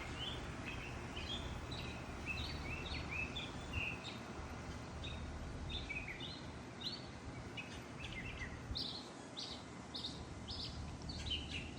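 Birds singing, a quick run of short chirping notes that keeps on throughout, over steady low background noise.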